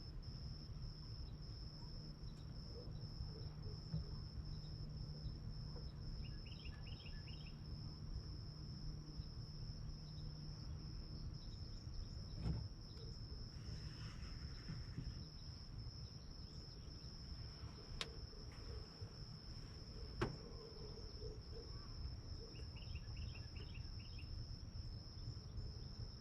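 Steady high insect trill, typical of crickets, with two short series of chirps and a few faint clicks over a low rumble.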